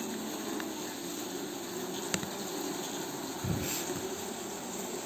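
Stingless bees buzzing steadily in an opened hive box. A sharp click about two seconds in and a soft low thump about a second later.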